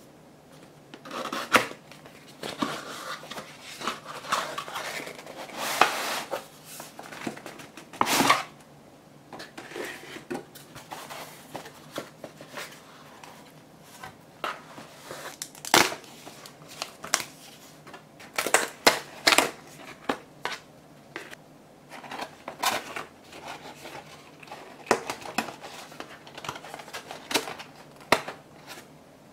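Paper and cardboard being handled: a printed sheet and die-cut card pieces rustling, sliding and tapping against a cardboard box, in irregular crisp rustles and sharp clicks.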